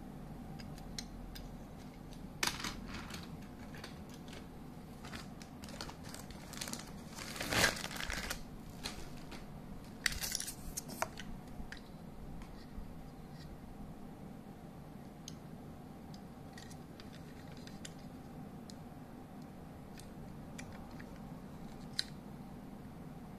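Plastic Plarail toy train car being handled and turned over in the hands: scattered light clicks and rubbing, with a louder burst of handling noise about seven and a half seconds in and another cluster around ten seconds.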